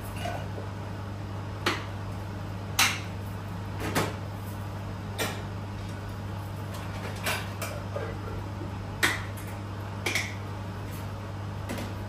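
Dishes and plastic containers clinking and knocking as a dishwasher is unloaded and they are set down in a dish rack: about nine separate sharp clinks spread out, the loudest about three seconds in and about nine seconds in.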